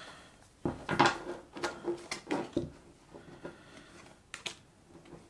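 Paper trading cards being flipped through by hand and slid off a stack, a string of light clicks and slaps of card stock, most in the first three seconds and one more near the end.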